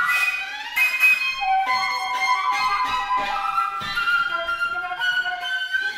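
Flute and violin playing contemporary chamber music together: held tones and sliding pitches, broken by several sharp accented attacks.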